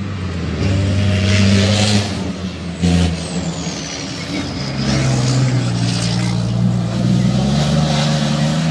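A Dakar rally truck's big diesel engine running hard as the truck passes at speed, its note shifting in steps a few times. A high whistle falls in pitch about three seconds in.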